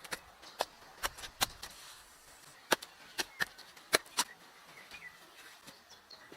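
A string of sharp, irregular knocks and clicks, a dozen or so, some louder than others.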